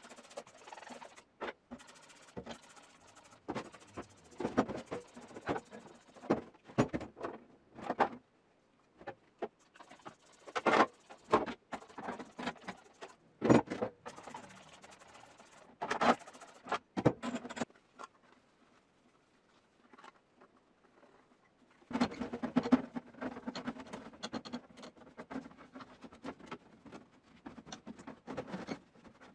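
Irregular clicks, knocks and rattles of hard objects being handled. The noise stops for a few seconds past the middle, then comes back as a denser run of clatter.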